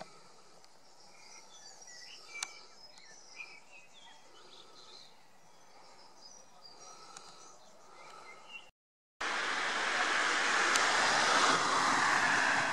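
Faint small birds chirping now and then. After an abrupt break in the sound, a car passes close by with a rush of tyre noise that swells and then slowly fades.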